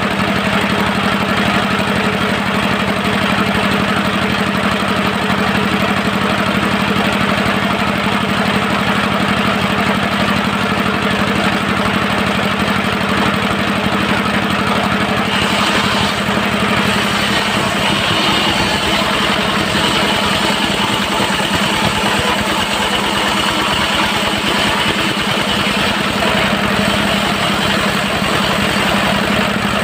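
Diesel engine of a circular-saw sawmill running steadily with a dense, even pulse. About halfway through, a higher steady whine joins it.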